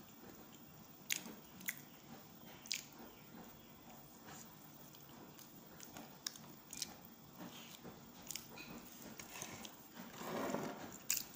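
Close-up mouth sounds of someone chewing soft banana cake: wet clicks and lip smacks every second or so, with a brief louder sound near the end.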